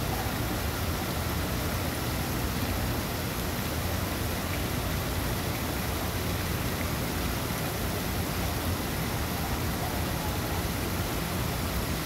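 Steady rushing noise of running water from a small fountain, even and unbroken, with a low rumble underneath.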